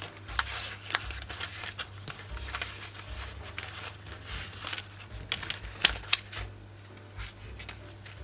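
Hands handling a passport-size notebook and its paper insert: irregular rustling and light tapping, with two sharper clicks about six seconds in, over a steady low hum.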